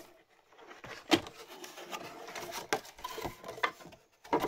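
Cardboard packaging being handled: rubbing and scraping as a printed card insert is slid up out of a cardboard box, with a few sharp taps and knocks, the loudest about a second in.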